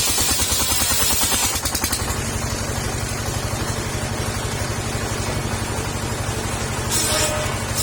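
Petrol-engine-driven circular saw running steadily, with a high hiss of the blade cutting sengon wood in the first two seconds and again briefly near the end.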